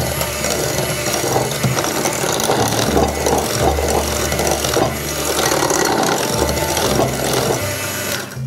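Cordless hand mixer running steadily, its wire beaters churning through a batter of beaten eggs, sugar, flour and lemon juice in a glass mixing bowl.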